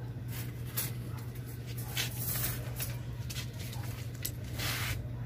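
Branches and bonsai wire being handled while wiring a tree: a series of short rustling, scraping sounds, with a longer one near the end, over a steady low hum.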